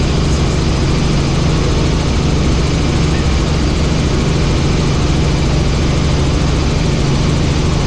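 Helicopter in flight: steady engine and rotor noise, a constant low hum under an even rushing noise, with no change in level.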